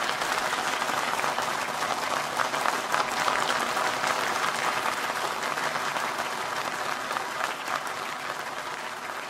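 Audience applauding, a dense run of clapping that welcomes a performer onto the stage and slowly fades toward the end.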